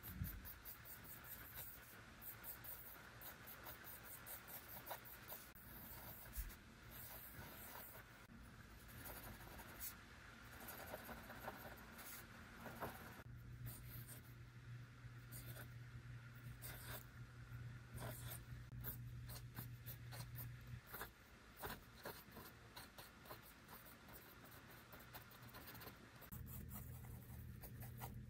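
Pencil scratching on a paper sketch pad in short, irregular strokes as rough drawings are sketched. A faint low hum comes in about halfway through, drops out, and returns near the end.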